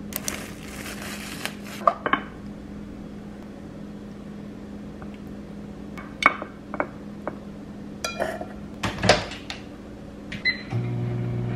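Plastic cling wrap rustles as it is peeled off a rice cooker's inner pot. Then a plastic rice paddle scoops cooked rice, clicking and knocking against the metal pot and a glass dish, over a steady low appliance hum. Near the end a short beep sounds and a louder hum starts, like a microwave being switched on.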